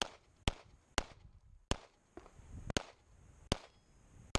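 A CZ75 Shadow pistol firing seven shots at an uneven pace, about half a second to a second apart.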